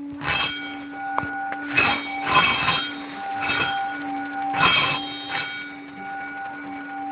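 A steady low ringing tone with fainter, unevenly spaced higher tones held over it. About five loud rushing swells rise over the tones: near the start, twice around two seconds, at about three and a half seconds and near five seconds, the last the loudest.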